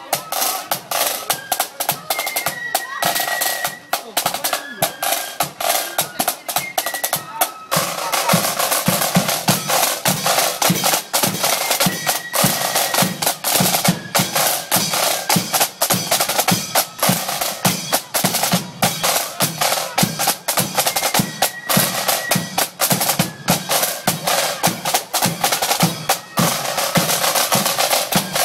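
Marching band snare drums playing rapid rolls and beats over a bass drum, close by. The drumming gets louder about eight seconds in.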